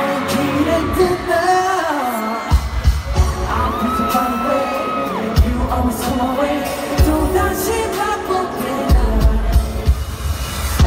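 K-pop song playing loud over an arena sound system at a live concert, a voice singing over the track. Heavy bass beats come in about two and a half seconds in and recur.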